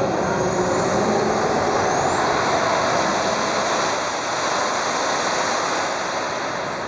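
Radio-controlled model jet's engine running on the ground: a steady rushing blast of air with a thin high whine that rises about two seconds in.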